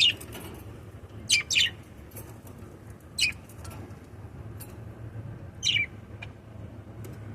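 Pet budgerigars giving short, sharp, falling chirps: a quick pair about a second and a half in, then single chirps at about three and five and a half seconds. A steady low hum runs underneath.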